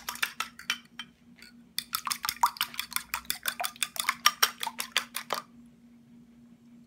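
A fork beating raw eggs in a glass bowl, clinking against the glass: a few quick strokes, a short pause, then a steady run of about eight clinks a second that stops about a second and a half before the end.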